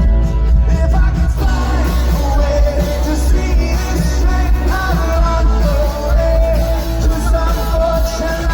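Rock band playing live, with sung vocals over heavy bass and drums.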